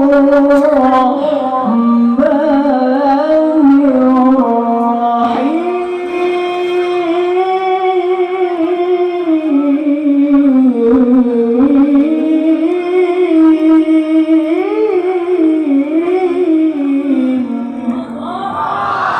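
A male qari reciting the Quran in a high voice: one long melodic phrase, each note held and ornamented with turns and glides. Near the end the recitation stops and the audience calls out in many voices.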